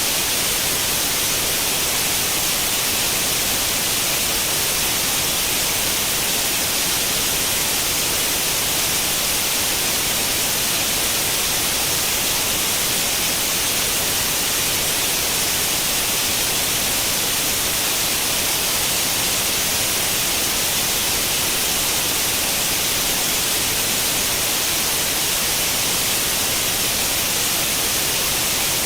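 Steady white-noise hiss like an old tube television tuned to no channel, even and unchanging, weighted toward the high end.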